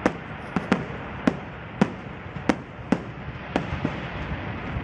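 Fireworks bursting overhead: about nine sharp bangs at irregular intervals of roughly half a second, over a continuous background hiss.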